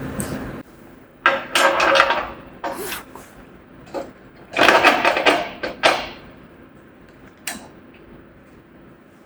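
Steel parts and tools handled during sawmill bed assembly, clattering and scraping in several short, irregular bursts with a sharp knock near the end.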